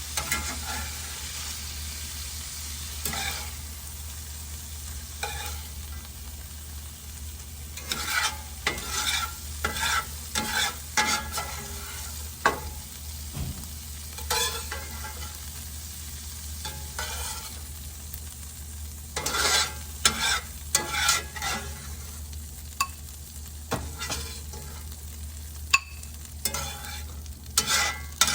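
Food sizzling in a hot pan while a utensil stirs it, scraping and clicking against the pan in clusters of strokes.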